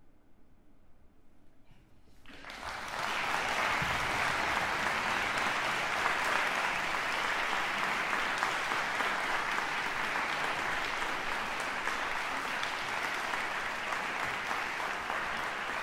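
A brief hush, then an audience breaks into applause about two seconds in, with the clapping holding steady.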